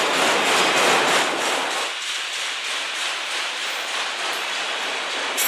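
Enclosed autorack freight cars rolling past on steel wheels: a steady rushing rumble of wheels on rail. The low end thins out about two seconds in, and there is one brief sharp click near the end.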